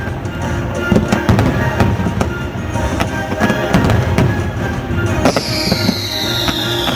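Fireworks going off in quick bursts and crackles over a loud orchestral show soundtrack from the park's speakers. About five seconds in, a long falling whistle starts and carries on sliding down.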